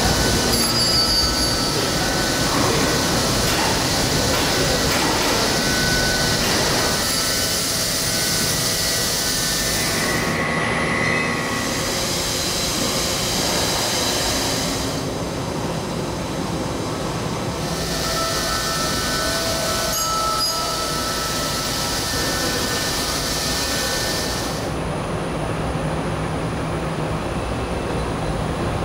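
Doosan DVF 6500 5-axis vertical machining center milling a bladed metal disc under flood coolant: a hiss of coolant spray with thin whining tones from the cutting. The sound changes abruptly several times, and near the end gives way to a lower machine hum.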